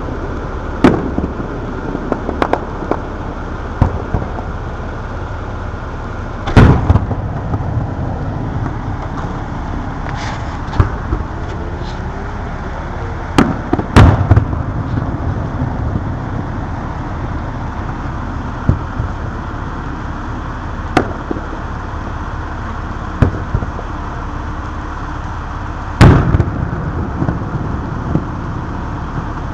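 Aerial fireworks shells bursting at a distance: sharp booms at irregular intervals, the loudest about six and a half, fourteen and twenty-six seconds in, some with a short echo trailing after, over a steady background noise.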